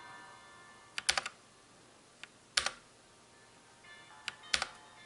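Keys being pressed on an AUKEY full-size mechanical keyboard with red linear switches: a few sharp keycap clacks in small groups, about three near one second in, a single one past two and a half seconds and a couple near the end.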